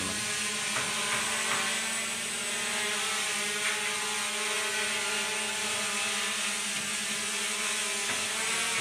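KS 66 toy quadcopter with brushless motors hovering: a steady, smooth whir of its four propellers with an even hum.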